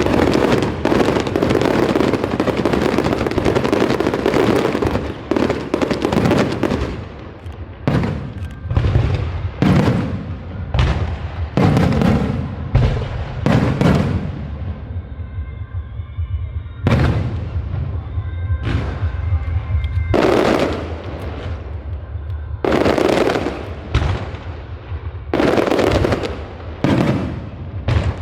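Aerial fireworks bursting: a dense, rapid barrage of bangs for the first several seconds, then separate bangs a second or so apart, and another quick cluster after about twenty seconds.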